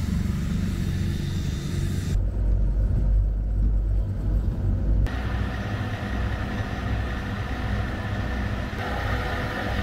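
Tor-M2 tracked air-defence vehicle's engine running. Outside it is a broad rumble; about two seconds in it turns to a deep, muffled rumble heard inside the driver's cab. From about five seconds it is a steady rumble with a thin, even high whine over it.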